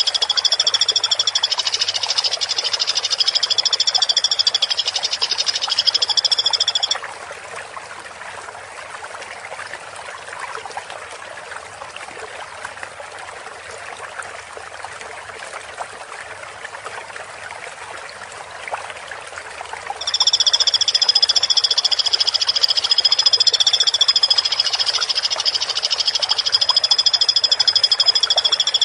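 Woodpecker calling in a long, dense, rapid high trill that holds steady for several seconds. It stops about seven seconds in, leaving a faint hiss for about thirteen seconds, then starts again.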